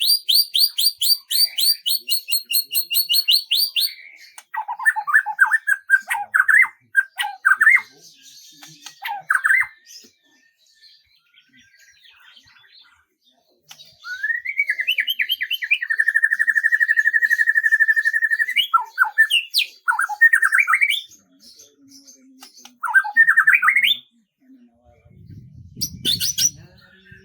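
A songbird singing: a fast high trill to start, then bursts of varied chirps and warbled phrases, with a long even trill in the middle and a short pause before it. A brief low rumble comes near the end.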